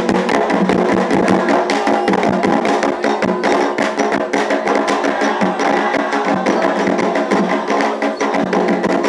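Candomblé ritual percussion music: hand drums and a sharp struck wood-block-like percussion playing a fast, steady, unbroken rhythm.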